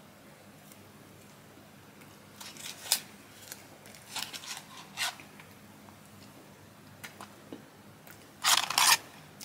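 Paper fast-food wrapper and paper fry carton being handled close to the microphone, crinkling and rustling in short bursts, the loudest just before the end.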